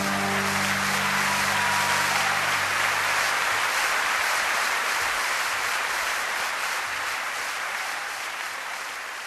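Audience applauding as a live song ends, with the last held low notes of the music dying away in the first few seconds. The applause slowly fades.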